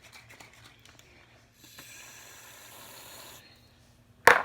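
Aerosol can of shaving cream spraying foam for fluffy slime, a steady sputtering hiss of about two seconds, followed near the end by one sharp knock as something is set down on the table.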